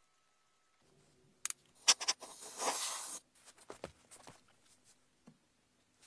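A wooden sand-casting flask being handled as its top half is lifted off: a few sharp knocks, the loudest about two seconds in, about a second of scraping, then a few lighter clicks.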